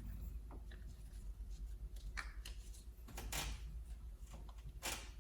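Ignition coil packs on a 1.8 L engine being pressed down and seated onto the spark plugs: a few light, scattered clicks and knocks of plastic parts being handled, over a faint low hum.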